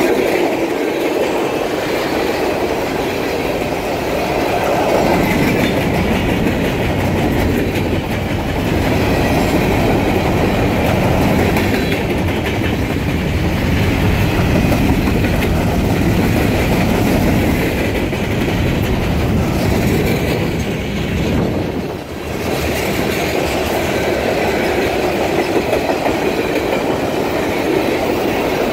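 Freight train cars (tank cars, boxcars and covered hoppers) rolling past close by: a steady, loud rumble of steel wheels on the rails with clickety-clack, easing briefly about three-quarters of the way through.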